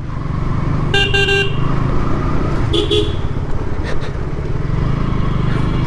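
KTM Duke 200's single-cylinder engine running steadily as the motorcycle rides through traffic. A vehicle horn honks once about a second in for half a second, then two short toots follow near three seconds.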